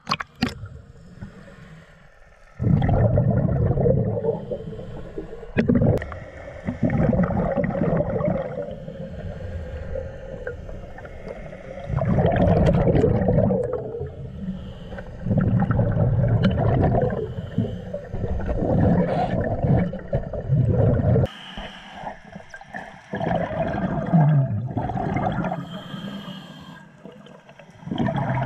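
Scuba diver breathing through a regulator underwater: each exhale is a loud, bubbly gurgling rumble lasting a second or more, repeated every few seconds with quieter inhales between.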